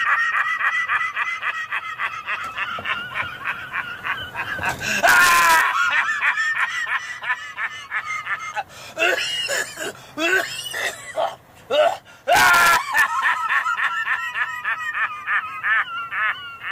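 A man laughing hysterically in long, high-pitched, rapidly pulsing peals, with two especially loud shrieking bursts about five seconds in and again about twelve seconds in.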